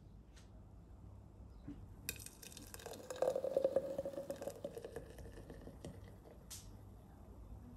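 Liquid poured into a glass for about three seconds, starting about two seconds in, with a few light clinks and knocks around it.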